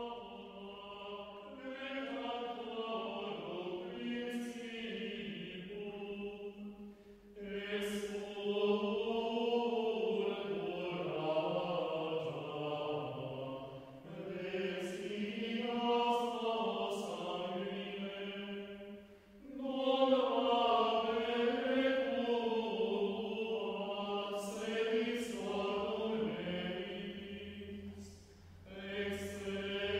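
Background music: slow vocal chant, voices singing long held phrases with short pauses between them.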